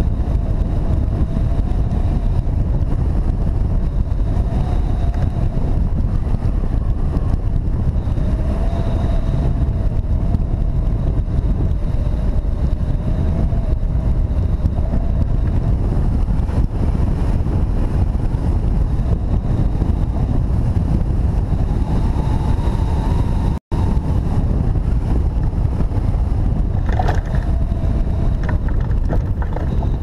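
Steady rush of wind over the microphone of a camera mounted on a hang glider in flight, with a faint wavering whistle from the airflow above it. The sound cuts out for an instant about three-quarters of the way through.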